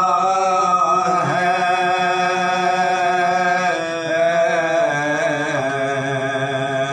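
Soz, the Shia lament chanted in Urdu without instruments, sung by two men's voices in long held notes with slight wavering ornament; one phrase eases into the next about four seconds in.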